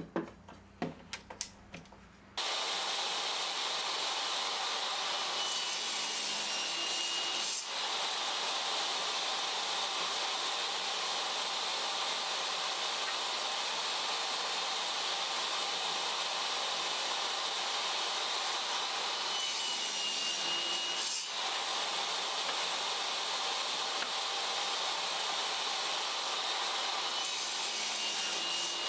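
A few light clicks, then a table saw runs steadily from about two seconds in as a wooden board is pushed through the blade on a crosscut sled. The cut turns harsher three times: around six seconds in, around twenty seconds in and near the end.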